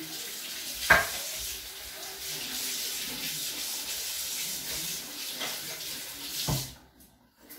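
Kitchen tap running into a sink basin while hands wash in it, a steady rush of water. There is a sharp knock about a second in and another just before the water cuts off near the end.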